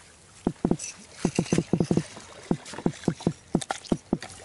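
Short, dull knocks in irregular clusters, several a second, as a bull redfish is held in a lip gripper against the boat's side and unhooked.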